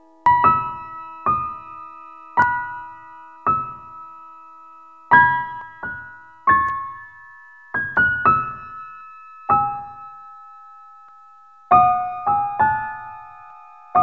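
Background music: a slow, sparse piano melody, single notes and small chords struck about once a second and left to ring out and fade.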